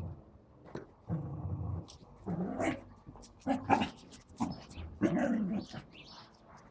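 Small dachshund growling in play, in about four short bursts.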